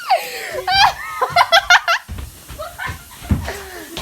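Girls laughing hard in a run of quick, high-pitched laughs, loudest a little over a second in.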